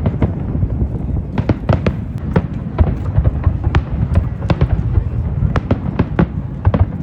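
Fireworks display going off: a quick, irregular run of sharp bangs and cracks, several a second, over a steady low rumble of further bursts.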